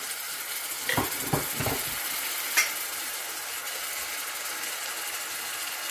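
Sliced onions, garlic and green chillies sizzling in hot oil in a metal wok, with garlic paste just added, as a wooden spatula stirs them. A few knocks of the spatula against the pan come about a second in, and a short click a little later.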